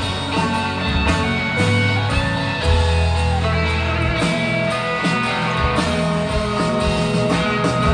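Live rock band playing loud, with electric guitar over bass and drums.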